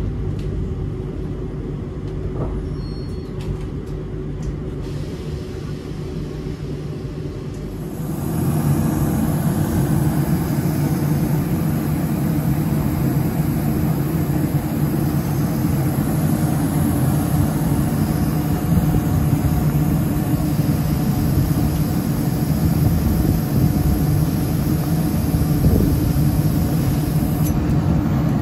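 Bombardier TVR rubber-tyred guided tram: a steady running rumble heard inside the car, then from about eight seconds in a louder, steady hum and rumble of the tram heard from beside it at the platform.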